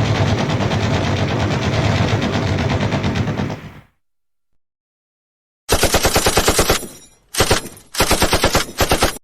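Machine gun firing a long continuous stream that fades out, then after a short silence three rapid bursts of automatic fire.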